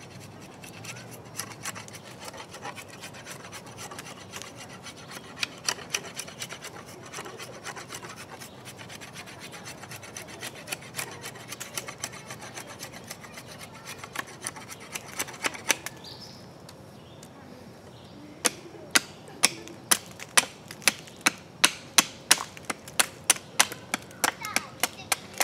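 A Dark Timber Bushcrafter knife scraping bark and knots off a freshly cut maple stick, with irregular rasping strokes along the wood. About 18 seconds in it settles into quick, sharp, regular strokes, about two a second.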